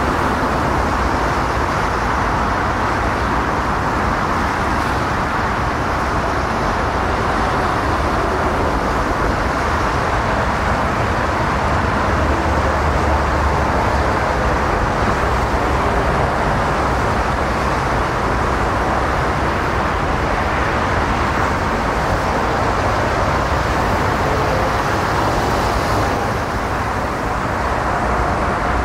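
Jet engines of large four-engine airliners running: a Boeing 747-8 rolling out after touchdown, then Airbus A380s taxiing. It is a steady, even rumble with no breaks.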